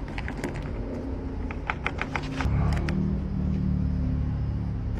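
A run of sharp clicks, then a steady low hum from a motor or engine that starts abruptly about two and a half seconds in.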